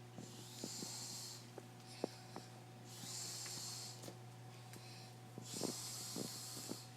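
A sleeping person snoring lightly: three long, airy breaths a few seconds apart, with small clicks between them, over a steady low hum.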